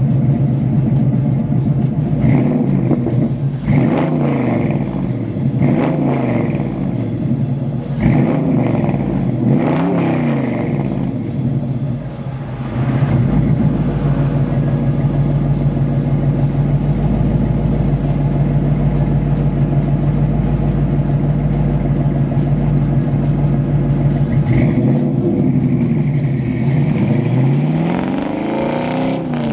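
LS1 V8 in a 1967 Chevelle SS, just started, is revved several times in the first ten seconds or so, then runs at a steady idle. Near the end it pulls away and accelerates down the road.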